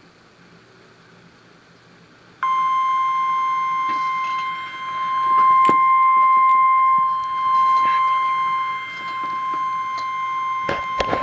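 NOAA Weather Radio warning alarm tone: a single steady beep that starts abruptly about two seconds in and holds for about ten seconds, signalling that a tornado warning is about to be read.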